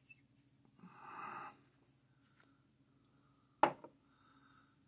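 Steel parts of an X/Y table handwheel being handled: a brief scraping slide about a second in as the graduated measuring ring comes off its hub. Later comes a sharp metal clack followed at once by a lighter one.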